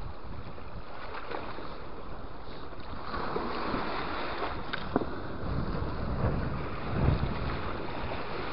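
Storm waves washing against a rocky lakeshore, with wind buffeting the microphone. The wash swells a little about three seconds in and again toward the end, with a sharp click about five seconds in and a thump near seven.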